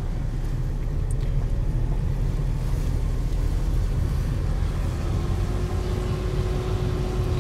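Road noise inside a moving car: a steady low rumble of engine and tyres.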